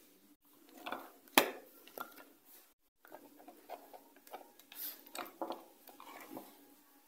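Small clicks, taps and light scrapes of a Bluetooth speaker's casing, screws and circuit board being handled during disassembly, with one sharp knock about a second and a half in.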